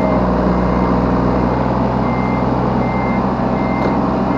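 Yanmar B3 Sigma 3-ton mini excavator's diesel engine running steadily. Over it, a high electronic warning beeper sounds in short beeps, a little more than one a second, with a pause of about a second midway.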